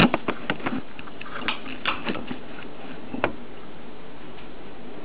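Heavy rain pouring steadily, with a scatter of sharp ticks over the first three seconds or so, the loudest right at the start.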